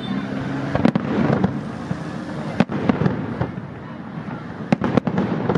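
Aerial fireworks shells bursting: a sharp bang about a second in, another near the middle, and a quick run of three or four bangs near the end, over a steady noisy background.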